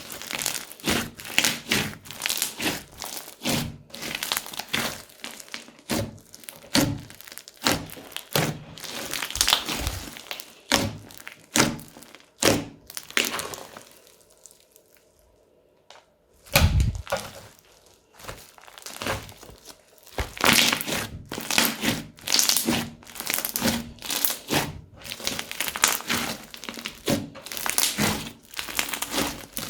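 Crunchy slime filled with beads and foam bricks being pressed and squeezed by hand, giving rapid repeated crackling crunches. About halfway through there is a short quiet pause, then a dull thump.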